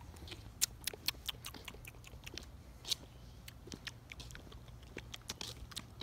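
Someone chewing grapes close to the phone's microphone: faint, irregular clicking and crunching, over a low rumble.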